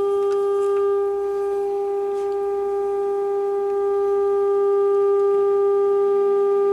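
Steady test tone from the signal generator, played through the 1936 Philco 116x radio's speaker while an RF alignment trimmer is turned for maximum signal. The tone dips slightly about a second in, then grows louder from about four seconds as the adjustment nears its peak.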